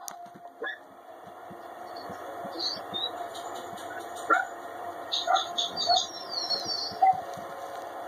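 Birds chirping over a steady hum, with a run of quick, high, falling chirps in the second half.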